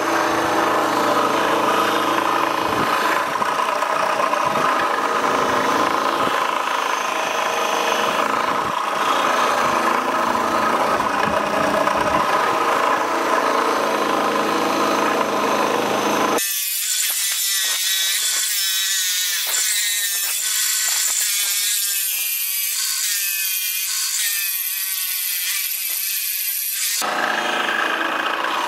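A V-belt-driven sanding wheel runs steadily while the wooden shaft of a sassafras canoe paddle is pressed against it and sanded. About 16 seconds in, the sound changes abruptly to a thinner, hissier scraping for about ten seconds, and then the fuller running noise returns.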